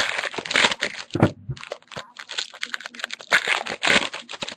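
Foil trading-card pack wrapper crinkling and tearing as it is opened by hand, in a run of sharp irregular crackles.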